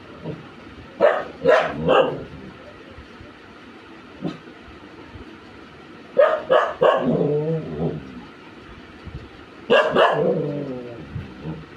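A dog barking in bouts: three quick barks, a single short bark, then two bursts of barks that each trail into a longer wavering, whining call.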